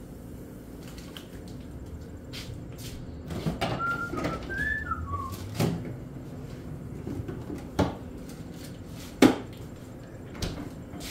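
A few short whistled notes, rising and falling, about four seconds in. Scattered knocks and clicks of kitchen handling run around them, the sharpest a single knock about nine seconds in.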